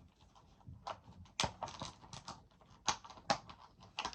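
A plastic action figure and its small accessory parts being handled and fitted: irregular sharp clicks and taps, with a few louder snaps.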